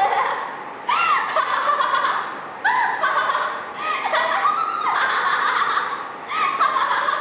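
A woman's high-pitched laughter in repeated bursts, each starting suddenly with a rising and falling pitch, about one burst every second or two.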